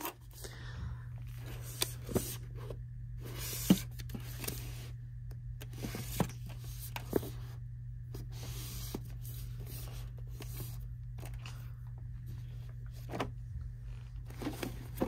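Books being handled on a metal store shelf: scattered taps, knocks and rustles as they are touched, pulled and slid, over a steady low hum.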